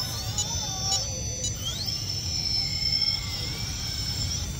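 Small-scale RC rock crawler's electric motor whining as it slowly crawls up a steep rock face, the high whine rising and falling in pitch with the throttle, with one clear rising sweep about a second and a half in. Under it runs a steady low rumble.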